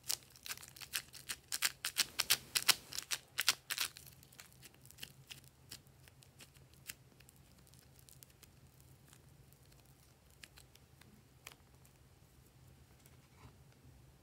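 Soft clay being pulled apart and stretched by hand: a dense run of quick, sticky crackles and pops over the first four seconds, then only occasional faint clicks.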